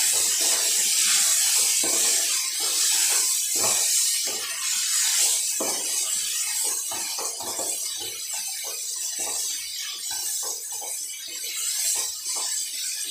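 Chicken and tomato paste sizzling in a karahi while being fried, with a wooden spatula scraping and knocking against the pan as it is stirred. The sizzle eases off gradually toward the end.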